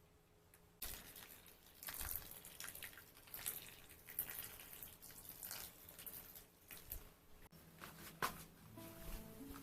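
Water running and splashing at a sink, with small irregular clicks, starting about a second in; background music comes in near the end.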